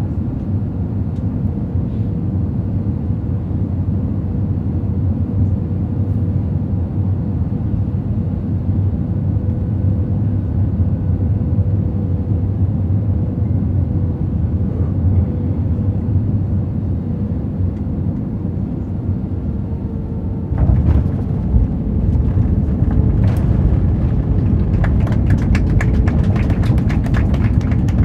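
Cabin noise of an Airbus A320-family airliner on final approach: a steady jet engine drone with a faint steady whine. About two-thirds of the way through, the wheels touch down and the sound jumps to a louder rumble with fast rattling as the plane rolls along the runway.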